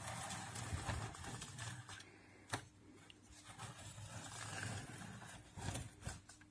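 Plastic scraping and rattling as a 3D-printed R2-D2 dome mechanism is turned by hand on a wooden workbench, with one sharp click about two and a half seconds in.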